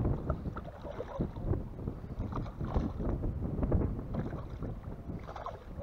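Wind buffeting the microphone, a low uneven rumble that swells and eases in gusts.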